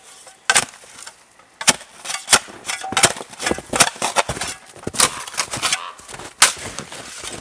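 Shovel chopping and scooping into heavy snow: a string of sharp crunching strikes at an uneven pace, roughly one every half second to second, with scraping between them.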